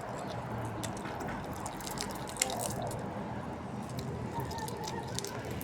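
Wet, irregular clicking and squishing mouth sounds of someone chewing food, with one sharper click about two and a half seconds in.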